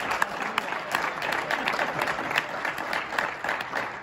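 Audience applauding, a dense run of many hand claps.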